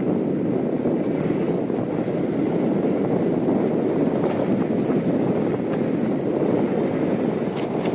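Car driving at a steady pace: an even, low rush of tyre and engine noise.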